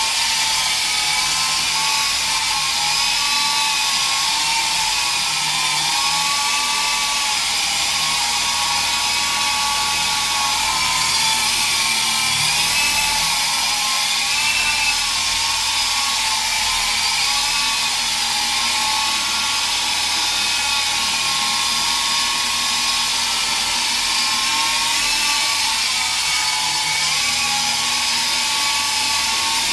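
Small electric RC helicopter in flight, its motor and rotors giving a steady high-pitched whine that wavers gently up and down in pitch as it hovers and moves about.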